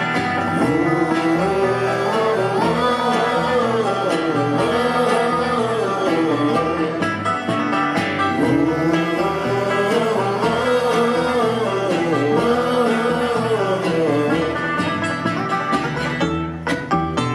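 A live bluegrass string band playing, with banjo and guitar and a melody line that rises and falls in repeated phrases.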